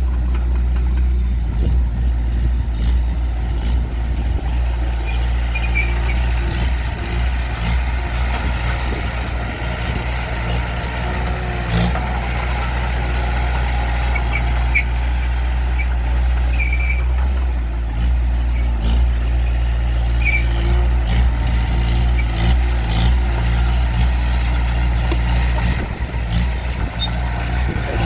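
Heavy diesel engines of a bulldozer and dump trucks running steadily at a work site, with scattered knocks and a few short high squeaks.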